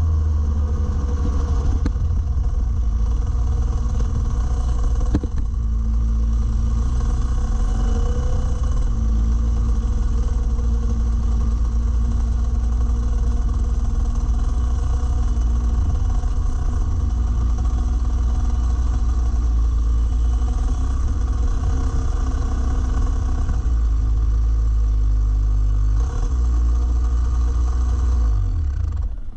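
Rotax Max Evo 125cc single-cylinder two-stroke kart engine running steadily at low revs, close to the microphone, then cutting off near the end.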